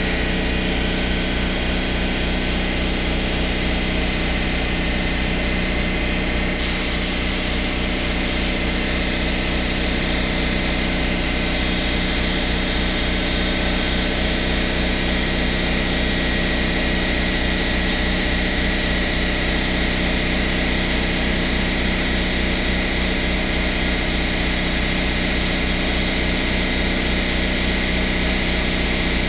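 Air compressor running steadily with a fast, even pulse. About seven seconds in, the hiss of a compressed-air paint spray gun joins it and carries on as paint is sprayed.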